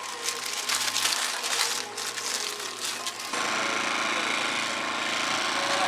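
Crackly rustling of paper for about three seconds. Then it switches abruptly to a steady engine-like drone of a small portable generator running beside a food truck.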